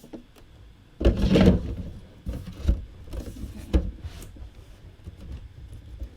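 Plastic model-kit parts being handled and knocked together while a leg part is fitted for screwing in: a louder rustling clatter about a second in, then a few sharp clicks and taps.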